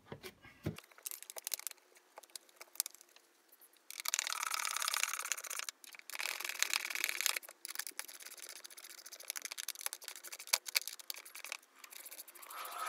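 Small ratchet with a Torx T30 bit clicking in quick runs as the screws are driven back into the plastic air filter housing cover. There are scattered taps and clicks of tool on plastic, with the longest, densest run of ratcheting from about four to seven and a half seconds in.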